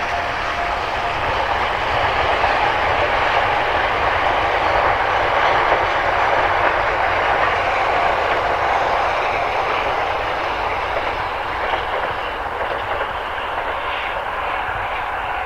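E491 series East i-E electric inspection train running past, a steady rumble of wheels on rail that swells slightly around the middle and eases a little toward the end.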